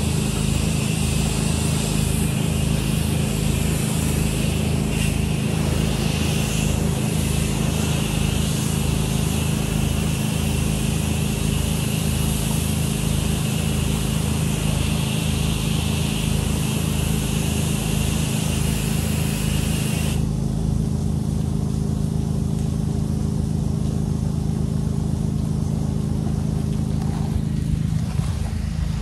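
Pressure washer engine running steadily under the hiss of a high-pressure water stream from an X-Jet rinse nozzle. The spray cuts off abruptly about two-thirds of the way through and the engine runs on.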